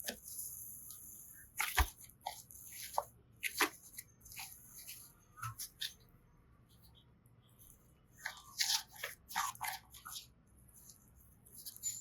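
Slime or clay being squeezed and pressed by hand, giving irregular sticky clicks, crackles and pops in clusters with quieter gaps between.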